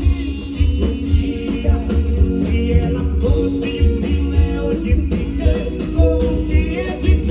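Live band music with a steady beat and heavy bass, with a voice singing over it.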